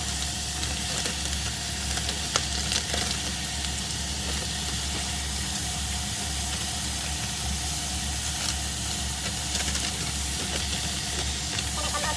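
Garlic, ginger, onion and lemongrass frying in olive oil and butter in a pot, a steady sizzle with a few light clicks of a stirring utensil.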